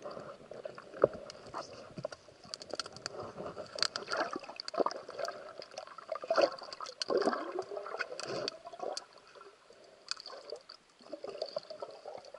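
Underwater water noise heard through a diving camera: gurgling bubbles and water movement with scattered sharp clicks and knocks, and a few short swooping bubble sounds about seven seconds in.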